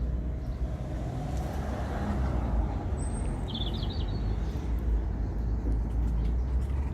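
Steady low outdoor rumble, with a bird's short high chirp about three seconds in, followed at once by a quick trill.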